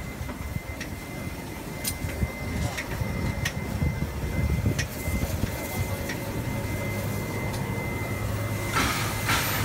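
New South Wales C36 class steam locomotive 3642 close by, with a low rumble, scattered metallic clanks and a thin steady whine. Near the end come hissing beats of steam, about two a second.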